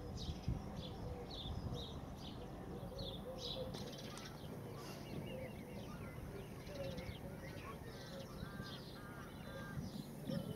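Wild birds calling: many short, high calls repeated throughout, with a run of three or four harsher calls about eight seconds in, over a steady low rumble.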